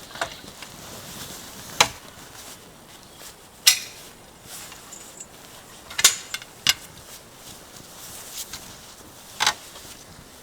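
Scattered clinks and knocks of scrap metal being handled, about six sharp hits at irregular intervals.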